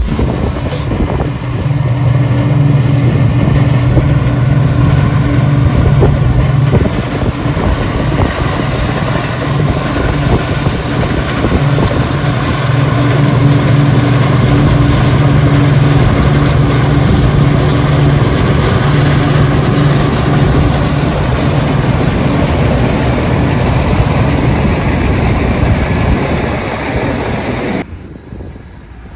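Diesel engines of harvest machinery running steadily under load, with wind noise on the microphone. The engine sound drops away sharply near the end.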